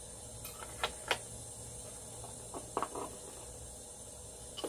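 Handling noise from the microphone kit's accessories: a few sharp clicks and taps of small plastic parts and cable, in a handful of separate strokes, over a steady low hum and hiss.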